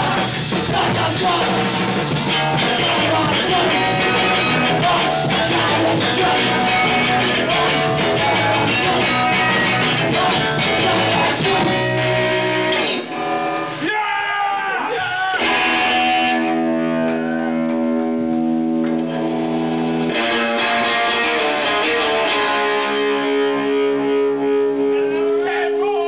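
Live hardcore punk band playing loudly with electric guitar. About halfway through, the full band breaks for a moment, then plays held, ringing guitar notes. Near the end it settles into a sustained held chord.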